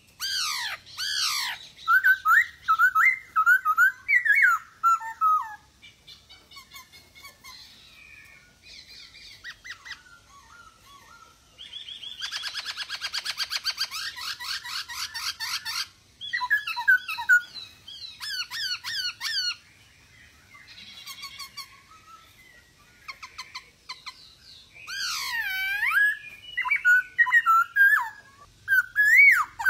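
Black-throated laughingthrush (Poksay Hongkong) singing: loud, varied phrases of whistled notes sliding up and down. A buzzy, fast rattle comes about twelve seconds in, with quieter spells between the phrases.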